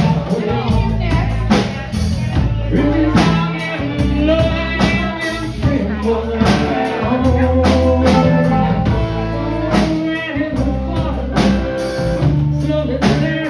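A live blues-rock band playing at full volume, with electric guitars over a drum kit keeping a steady beat.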